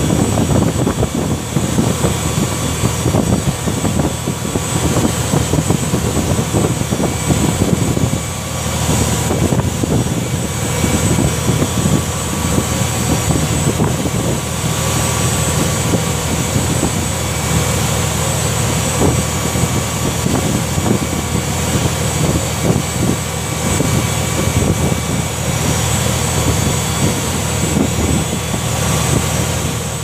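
Fishing boat's engine running steadily under way, a continuous low drone.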